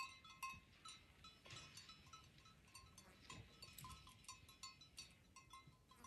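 Faint, irregular clinking of bells on a herd of walking goats, many small ringing strokes a second.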